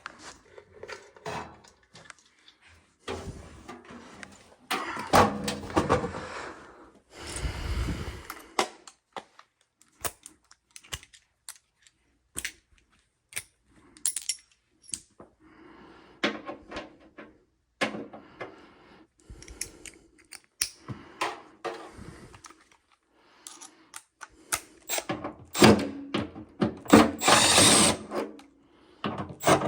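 Hand tools and metal parts being worked on an air handler: scattered clicks, knocks and scraping, with a few longer noisy stretches of a second or two, the loudest near the end.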